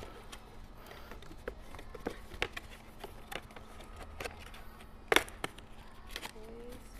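Scattered light clicks and taps of cardboard boxes and plastic packaging being handled, with one sharper knock about five seconds in, over a faint steady hum.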